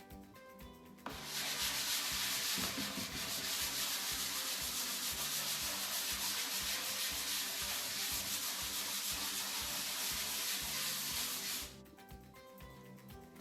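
Sandpaper sanding the wooden cabinet of a 1930s Philco radio: a steady, even scratching hiss that starts abruptly about a second in and stops suddenly near the end. Quiet background music runs underneath.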